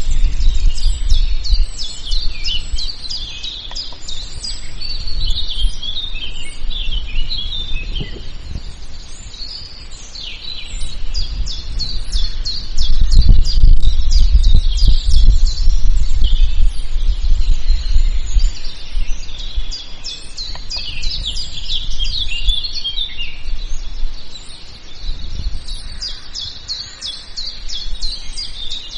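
Many forest birds chirping and singing in a dense, continuous chorus. Underneath is a low rumble that swells and eases every several seconds.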